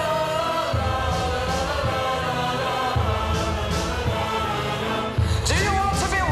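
Live stage-show music: long held notes over a steady pulsing bass beat. About five seconds in, a voice comes in with sliding notes, along with bright cymbal-like hits.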